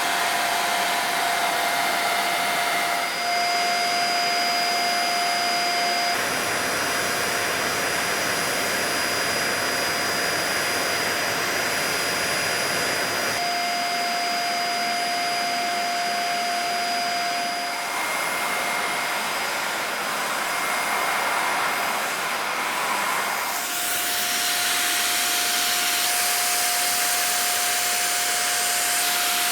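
Dyson Small Ball upright vacuum running, a steady rush of air with a thin motor whine; the sound shifts in tone a few times.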